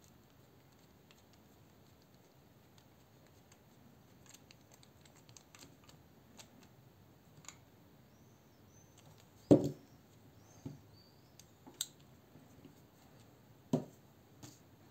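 Small irregular clicks of a ratchet screwdriver and bit working a Torx screw in a Ruike P801-SF folding knife's handle, followed by a few louder knocks, the loudest about halfway through and another near the end.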